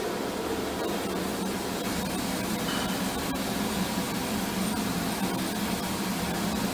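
Carlin oil burner's blower fan running on steadily with a low hum and hiss after the test flame has been shut off.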